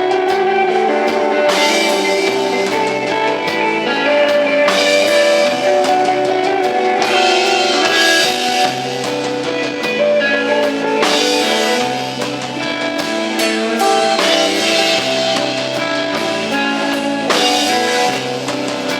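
Instrumental rock band playing live: sustained electric guitar notes over bass guitar and a drum kit, with cymbals crashing every few seconds.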